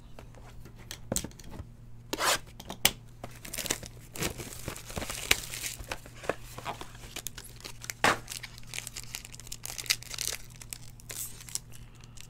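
Trading-card box being torn open and its foil pack crinkled in the hands: irregular rips, crackles and crinkles, over a steady low hum.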